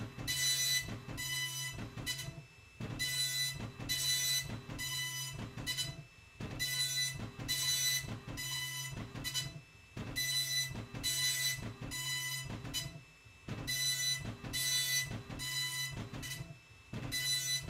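Colour dot matrix printer printing: the print head rasps across the page in repeated passes of under a second each over a steady low motor hum, with a short pause every three to four seconds.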